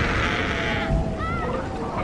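Horror sound effects: a harsh scream that breaks off about a second in, then a short rising-and-falling wail, over a low rumbling drone.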